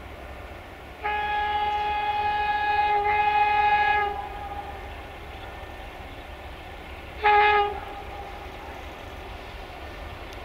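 Air horn of a Romanian 060-DA (LDE2100) diesel-electric locomotive sounding one long blast of about three seconds, then a short blast about three seconds later.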